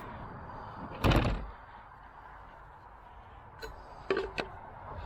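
A single loud thump about a second in, then a few light clicks and taps near the end.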